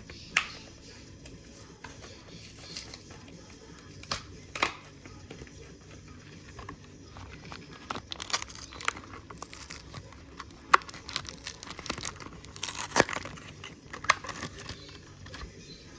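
A sealed Hot Wheels blister package being torn open: stiff plastic crackling and card tearing in scattered clicks and rustles, busier and louder in the second half.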